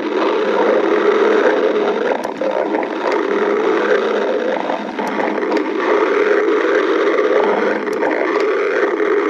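A stomach growling: one long, continuous growl that runs without a break, with a few faint clicks over it.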